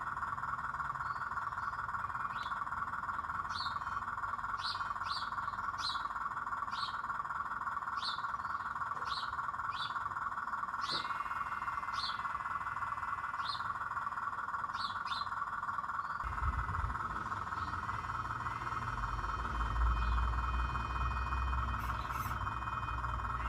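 Steady outdoor chorus of frogs in a constant trilling band, with short high bird chirps repeating about once a second through the first two-thirds. A low rumble joins about two-thirds of the way in.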